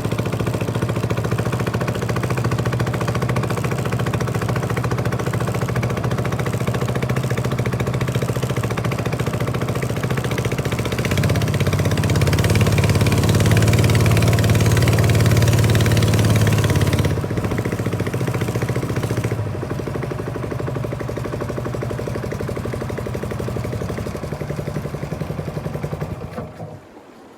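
Small boat's engine running under way, over rushing water. It is throttled up about eleven seconds in, eased back twice a few seconds later, and cuts off near the end.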